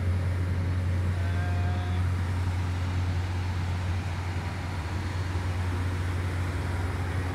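Steady low drone of a drilling rig's heavy machinery running.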